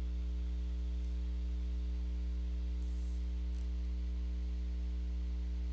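Steady electrical mains hum with a low buzz of evenly spaced overtones and a faint hiss underneath.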